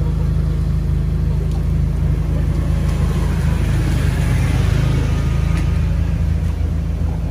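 Car engine idling: a steady low hum. A hiss swells about three to five seconds in.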